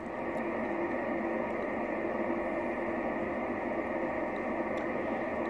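Steady hiss of band noise from a transceiver's speaker on the 11-metre band between transmissions, with a faint low tone running through it.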